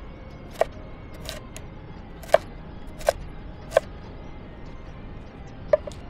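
Steel cleaver chopping vegetables on a wooden board: about six sharp knocks, unevenly spaced, each with a brief ring. There is a longer gap before the last chop, near the end.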